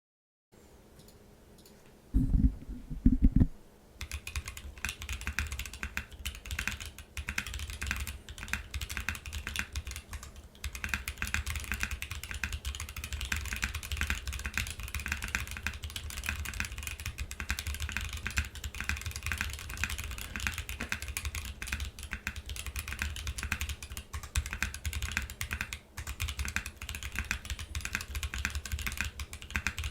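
Typing on an Iron165 R2 custom mechanical keyboard fitted with Boba U4T tactile switches on a carbon fibre plate, with ePBT keycaps and a stainless steel top and weight. A few loud low thumps come about two seconds in, then fast, continuous keystrokes run on.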